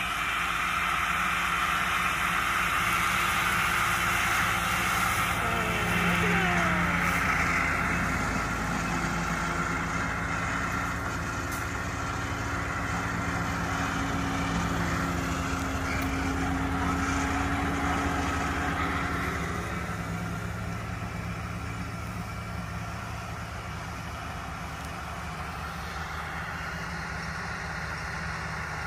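Kubota tractor's diesel engine running steadily under load while its front-mounted Kuhn mower conditioner cuts ryegrass, with a whine that falls in pitch about six seconds in. The sound is louder as the machine passes close and eases off after about twenty seconds.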